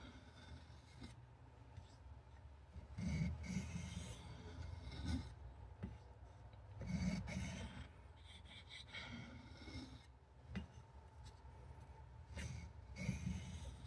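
Cattaraugus 225 Quartermaster knife blade being sharpened by hand: a series of uneven rubbing strokes of steel drawn across a sharpening surface, every second or two.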